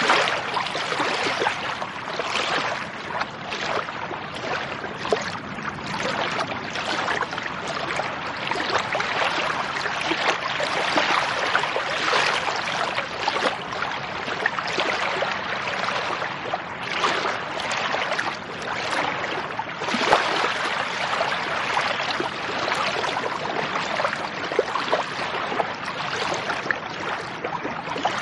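Lake water lapping and splashing: a steady wash of water noise dotted with many small splashes and trickles.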